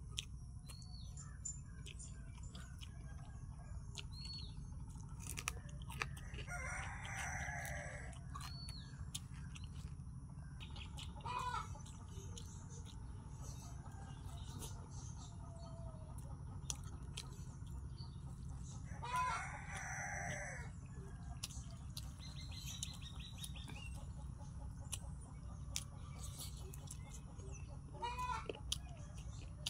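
A rooster crowing twice, each crow about two seconds long, with shorter fowl calls in between. Beneath it are a steady low hum and scattered small clicks of chewing and eating by hand.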